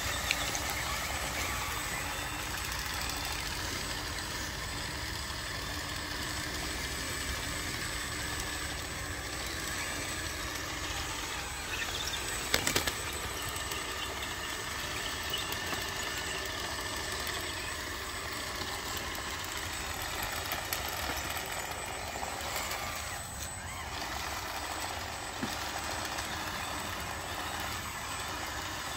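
Radio-controlled toy dump trucks running, with a steady hum and a thin high whine, and a brief burst of clicks about twelve seconds in.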